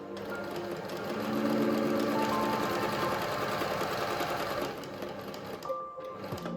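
Pfaff Tipmatic 6110 sewing machine running at speed with a fast, even rattle of needle strokes, stopping about five seconds in. Background music with sustained tones plays throughout.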